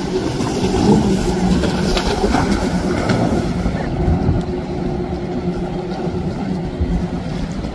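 Jet ski engine running at speed, a steady drone over the rush of water and spray.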